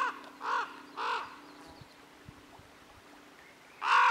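Crow cawing: three caws in quick succession about half a second apart, then a single louder caw near the end.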